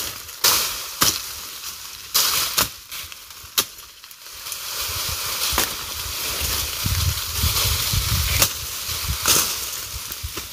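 Cut weeds and brush burning, crackling over a steady hiss, with sharp pops at irregular gaps.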